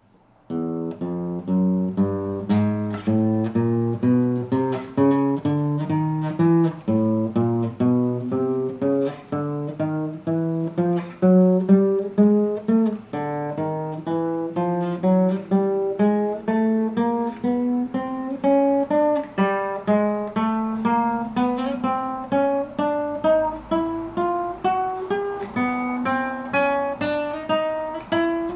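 Acoustic guitar (violão) playing single plucked notes one after another, fret by fret up the neck, about two notes a second, climbing steadily in pitch.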